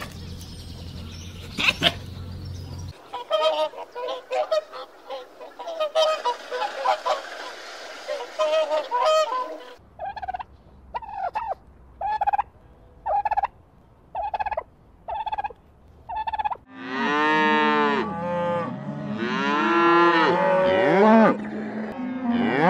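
A run of farm animal calls from clips edited together. First come scattered short bird calls, then short calls repeated evenly about one and a half times a second. Cattle mooing follows in the last quarter and is the loudest part.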